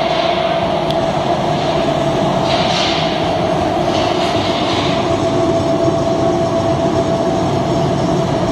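Organic fertilizer ring-die granulator running: a loud, steady mechanical rumble with a constant mid-pitched hum. Two brief hissing surges come about two and a half and four seconds in.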